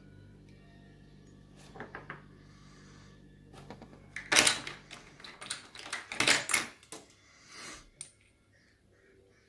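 Metal clicks and rattles of a small padlock and its parts being handled as it is taken apart: a few light clicks about two seconds in, then a loud cluster of sharp clicking and rattling in the middle.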